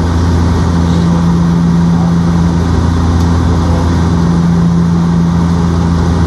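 Airplane cabin noise in flight: a loud, steady engine drone with a low hum under an even rushing of air.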